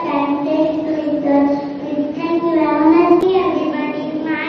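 Children singing a slow song with long held notes.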